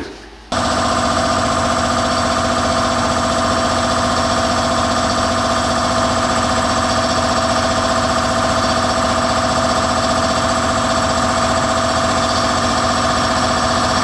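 Air compressor running loudly and steadily: an even machine drone with a fast pulse underneath. It starts abruptly about half a second in.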